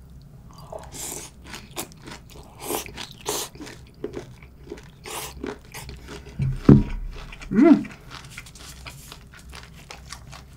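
Close-up chewing and crunching of a mouthful of mulhoe, a Korean cold raw-seafood soup with sea cucumber, vegetables and noodles, with many small crisp crunches. Two louder short mouth sounds come about two-thirds of the way in.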